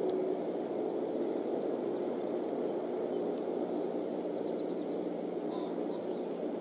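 Steady low outdoor background noise from the nest-cam microphone, with a few faint, short, high chirps of distant birds about four to five seconds in.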